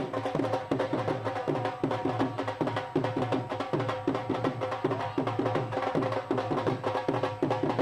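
Instrumental music: a hand drum keeps a quick, steady beat under sustained melodic notes.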